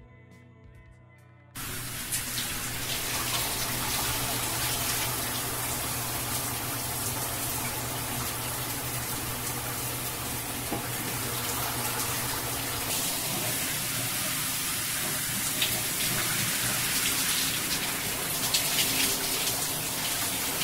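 Shower running: a steady spray of water from the showerhead, starting suddenly about a second and a half in.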